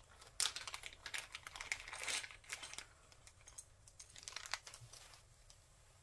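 Small clear plastic bag crinkling in irregular crackles as fingers open it to get at metal spring-ring clasps, the crackling dying away near the end.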